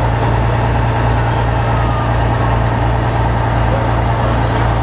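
Steady low hum of an idling vehicle engine, with an even pulsing rumble beneath it; the deer's impact with the fence is not heard over it.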